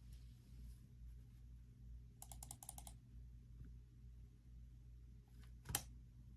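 Computer keyboard keys typed in a quick run of about eight clicks a couple of seconds in, then one sharper click near the end, over a faint low hum.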